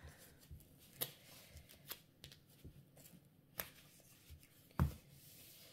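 Scissors snipping slowly through the plastic wrapping of a rolled canvas: a handful of quiet separate snips about a second apart, the loudest near the end.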